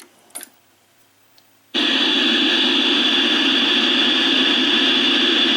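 Symphonic TV/VCR combination's speaker bursts into loud, steady static hiss about two seconds in, after near quiet: the TV has switched itself on when plugged in, with no signal source connected.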